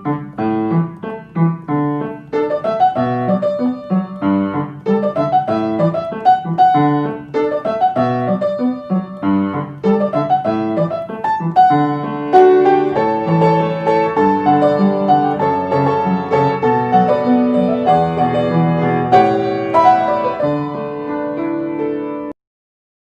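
Solo piano music, a steady run of struck notes and chords, which cuts off abruptly near the end.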